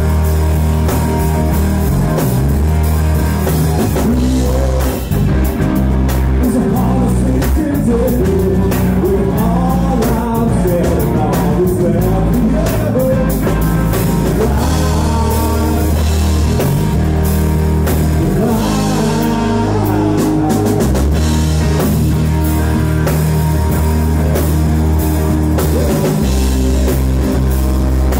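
Live rock band playing a song, with drum kit, bass and electric guitar under a sung melody.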